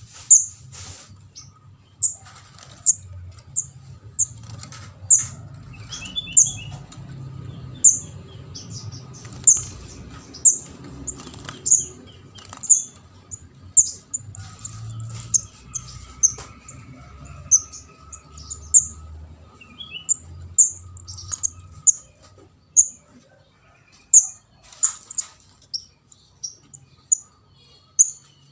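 Juvenile orange-headed thrush calling: short, sharp, high-pitched calls repeated irregularly about once or twice a second.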